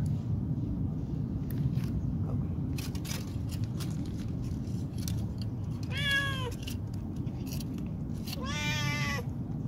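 A domestic cat meows twice: a short call that falls away about six seconds in, and a longer one near the end. Light crinkling and clicking from the foil and a food pouch being handled sounds between the calls.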